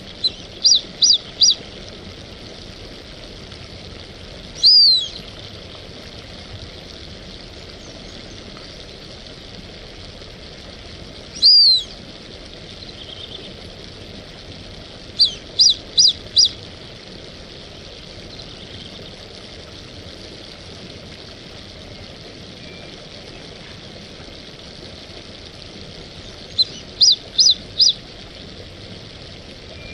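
Brazilian teal (marreca-ananaí) calling with high, clear whistles: three sets of four quick whistles, near the start, at about 15 seconds and near the end, and two longer single down-slurred calls at about 5 and 12 seconds. A steady hiss runs underneath.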